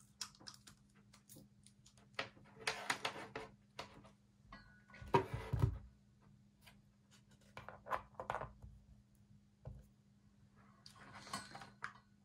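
Scattered handling sounds: short clicks, taps and rustles as a light-up display base is set down on a desk and its USB cable fitted, with a heavier thump about five seconds in, over a faint steady hum.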